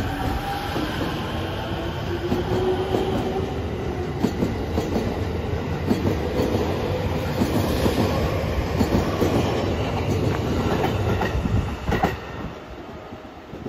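JR E231 series 900 electric train pulling out of a station: a whine rises slowly in pitch over a steady rumble as it speeds up, and the wheels click over the rail joints as the cars pass. The sound drops sharply about twelve seconds in.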